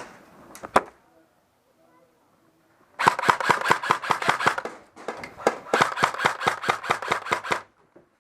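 Airsoft gun firing two long rapid bursts, about nine shots a second, the first starting about three seconds in and the second about five seconds in. Two sharp clicks come just before the first second.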